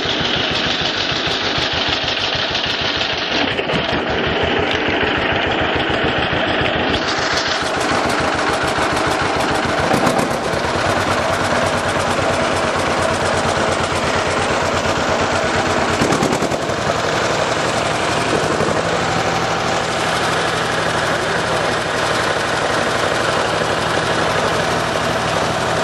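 A 1949 John Deere Model B's two-cylinder engine pulls the tractor along in fourth gear, firing in rapid, even beats. It is running strongly now that its magneto timing has been set right.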